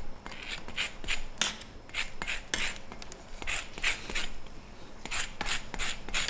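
Orange zest being grated on a rasp grater: rhythmic rasping strokes of the peel across the metal blade, about two or three a second.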